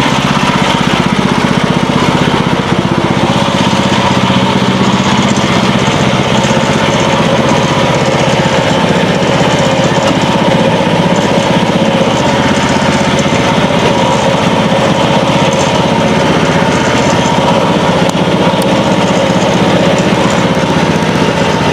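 Gas engine of a portable band sawmill running steadily.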